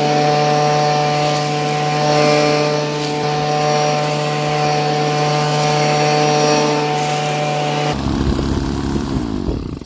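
Leaf blower running steadily with a strong fan whine; about eight seconds in it drops off and winds down to a stop.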